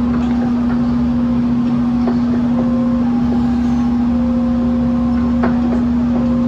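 Crown electric stand-up reach truck working in an aisle: a loud steady electric hum, with short higher tones coming and going and a few light clicks.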